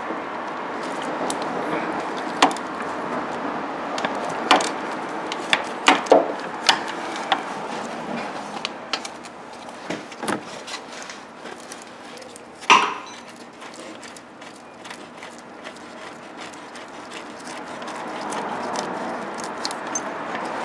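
Hand tools on an engine: a ratchet and socket working a belt-tensioner bolt loose, giving irregular metallic clicks and clinks, with one sharper knock a little past halfway.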